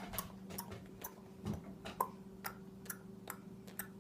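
Light, evenly paced clicking, about four clicks a second, over a faint steady hum.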